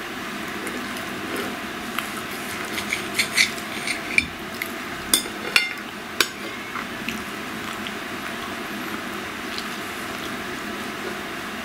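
Close-up eating sounds of meat being chewed, with a run of sharp clicks from about two to six seconds in, then quieter chewing.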